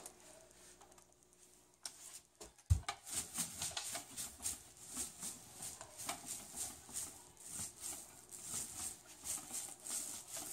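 Paint roller on an extension pole being rolled over a wall with wet paint, making a repeated sticky crackling swish with each stroke. A low thump comes near the start of the rolling, after a quiet first couple of seconds.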